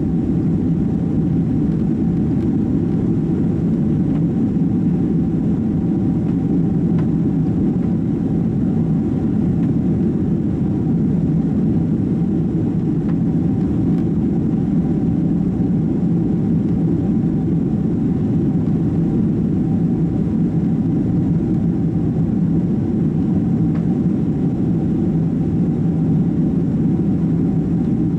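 Steady low rumble of a Boeing 767-300's engines and airflow heard inside the passenger cabin, with a faint steady whine above it. It stays even, with no rise or fall.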